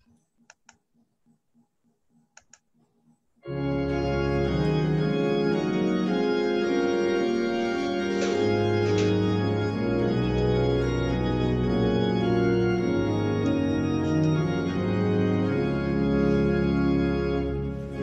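Organ playing a hymn introduction in sustained chords over a moving bass line, coming in suddenly about three and a half seconds in after near silence with a few faint clicks.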